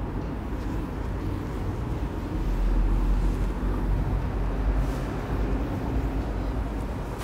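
A board duster rubbing across a whiteboard as it is wiped clean: a low, steady rubbing noise that grows louder in the middle.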